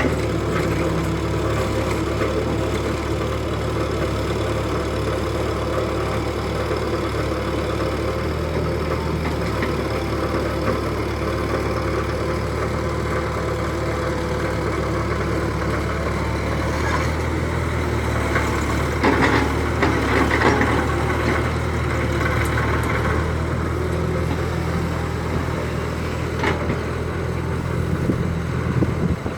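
Remote-control model excavator and dump truck working, a steady low diesel-like engine drone throughout, with a louder stretch of mechanical rattling and whirring about two-thirds of the way in and a few short clicks.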